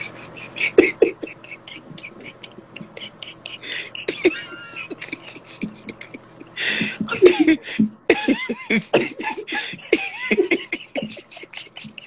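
A man beatboxing close to a phone microphone: a rapid run of mouth pops and clicks, several a second, with short vocal sounds mixed in. It grows louder about halfway through.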